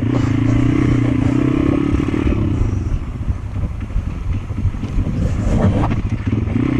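Pit bike's single-cylinder engine running on a trail ride. It holds a steady pull for about two seconds, the pitch drops as the throttle eases, the bike rattles over rough ground, and then the engine note picks up again near the end.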